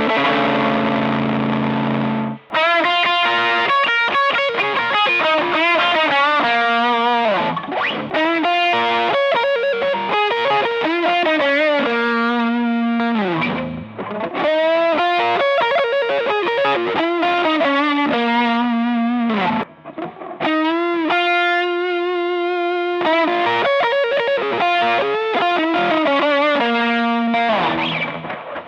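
Harley Benton TE-52 Telecaster-style electric guitar playing a held chord, then a melodic lead line with string bends and vibrato, broken by short pauses.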